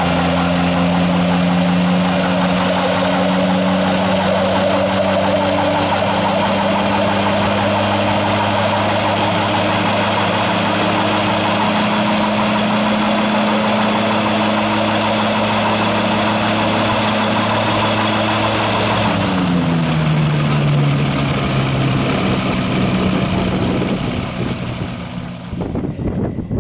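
Autogyro engine and pusher propeller running at steady raised revs while the prerotator spins up the rotor blades. About three-quarters through, the engine is throttled back and its pitch falls. Near the end the sound cuts to wind noise on the microphone.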